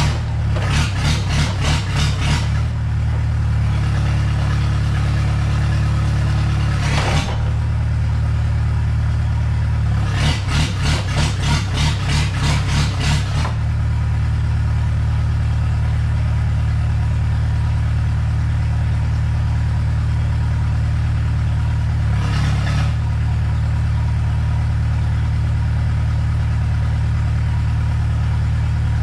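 Komatsu PC60-5 excavator's rebuilt diesel engine running at a steady idle. Two stretches of rapid clattering, each a couple of seconds long, come over it: one near the start and one about ten seconds in.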